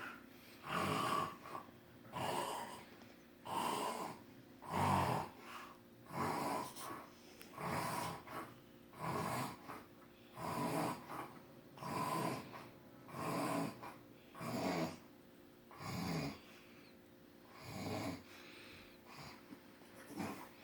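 A sleeping man snoring, about one snore every one and a half seconds, each about half a second long, in a steady rhythm.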